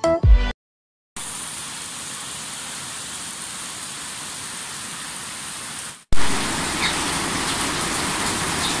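Heavy rain falling steadily, an even hiss of downpour on a road and pavement. A snatch of music is heard at the very start before a short gap, and about six seconds in the rain sound cuts and comes back louder.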